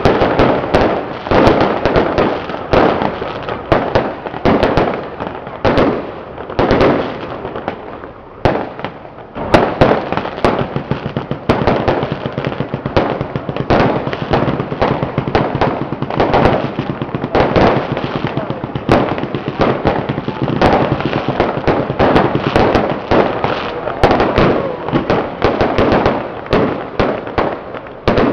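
Firecrackers going off in a long, dense barrage of rapid cracks. The barrage thins briefly about eight seconds in, then picks up again.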